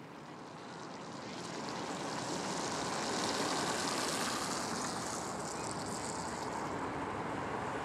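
Road traffic: cars passing on a city street, their tyre and engine noise swelling to a peak about three to four seconds in and then easing slowly.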